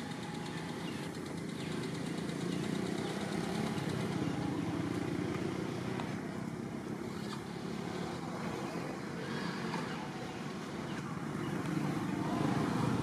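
Steady low rumble of distant motor traffic.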